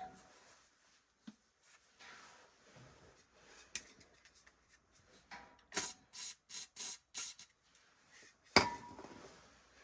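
Handling noises of tools and parts: scattered light clicks, then a quick run of about five sharp clicks, and near the end one loud knock with a short ring.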